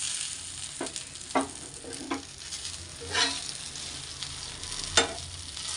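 Masala-coated fish pieces sizzling in a little oil on a flat black pan, with a metal spatula scraping and clicking against the pan about five times as the pieces are turned and lifted.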